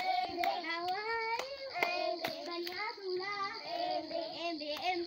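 Young children singing a sing-song chant together, with a few sharp claps or hand slaps cutting through the singing.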